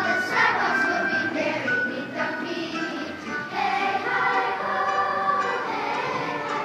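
Children's show choir singing together.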